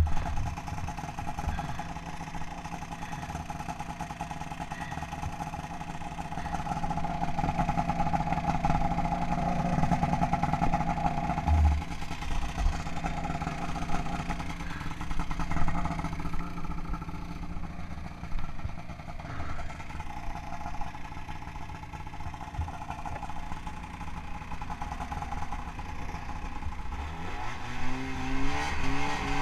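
Ski-Doo snowmobile's Rotax 583 two-stroke twin running steadily at idle while the sled sits stuck in the snow, then revving up in the last couple of seconds as it starts to pull away.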